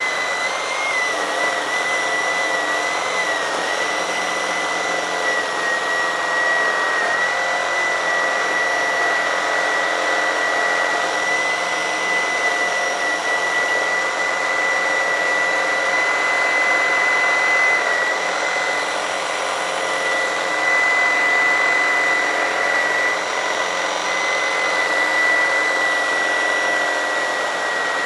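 Milwaukee M18 Fuel Super Sawzall reciprocating saw running flat out in clean-cut mode with its orbital action off, a used blade slowly sawing through a 4x6 timber. A steady high motor whine sounds over the rasp of the blade, unbroken throughout.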